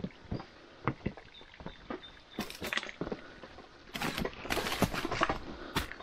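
Footsteps walking over stones and dry leaf litter, about two steps a second. From about two seconds in, louder crunching and rustling of leaves and twigs.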